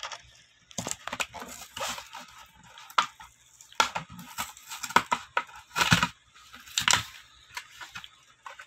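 A die-cast toy car's cardboard-and-plastic blister pack is torn open by hand. The card rips and the plastic crackles in irregular bursts, loudest about six and seven seconds in, then dies down near the end.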